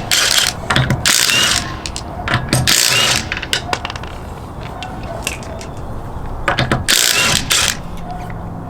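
Ryobi half-inch cordless impact wrench run in about three short bursts, loosening a car wheel's lug nuts.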